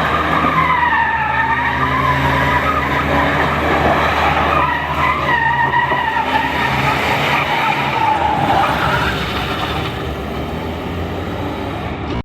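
Car drifting: tyres squealing in long wavering screeches over the steady note of the engine under power.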